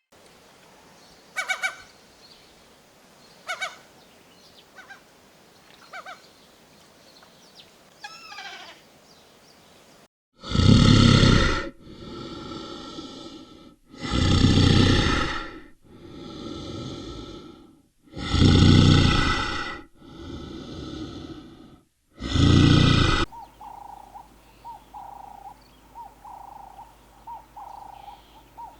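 Animal calls. First come a few faint short calls; then, about ten seconds in, seven loud calls, with loud ones alternating with softer ones; then a faint, rapidly pulsing call near the end.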